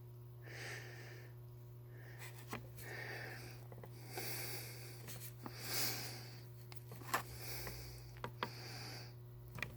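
Quiet close-up handling noise: soft hisses and rubbing with a few light clicks, over a steady low hum.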